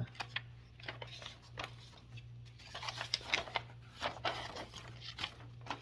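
Paper rustling and crackling as a large fold-out instruction sheet is handled and unfolded, in irregular quick crinkles, over a steady low hum.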